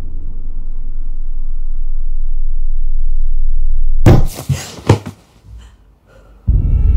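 Horror-film sound design: a low rumbling drone swells steadily louder, then about four seconds in it breaks into a sudden burst of crashing, slamming hits, a jump-scare sting. After a short lull, a loud, ominous music cue comes in near the end.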